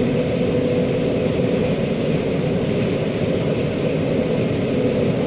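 John Deere 4755 tractor's six-cylinder diesel engine running steadily, a constant drone with a held hum.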